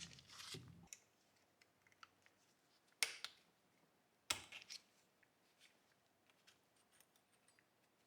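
Small hard parts being handled: two sharp clicks about a second and a half apart, with scattered faint taps and ticks. A low hum stops about a second in.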